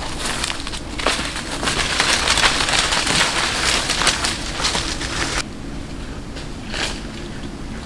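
Footsteps crunching through dry leaf litter and leafy branches rustling as they are carried through undergrowth, a dense crackling. It cuts off suddenly about five and a half seconds in, leaving a quieter background with a few faint clicks.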